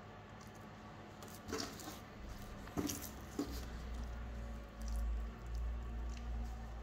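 Wet, squishy sounds of raw monkfish fillets being handled and laid down on a plastic cutting board, with a few short sharp taps near the middle. A low rumble comes in about halfway.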